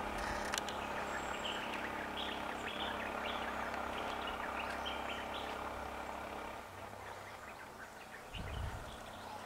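Birds chirping over a steady low engine hum from an idling vehicle. The hum drops away about two-thirds of the way through, and a few soft low thumps come near the end.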